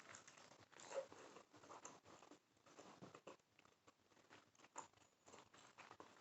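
Faint chewing and wet mouth sounds of someone eating a birria taco, with scattered soft clicks.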